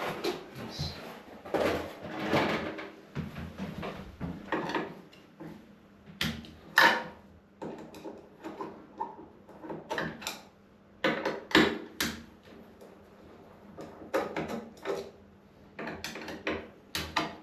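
Irregular knocks, clatters and rustles of objects being handled, with a few sharper knocks about 7 s in and between 10 and 12 s in.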